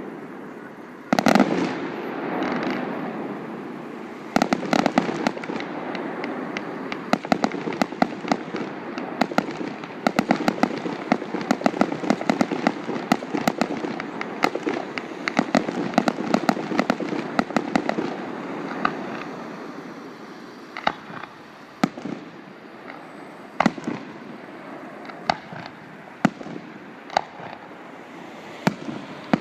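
Fireworks display going off: a loud bang about a second in, then a dense run of bangs and crackling shells, thinning out near the end to scattered single bangs.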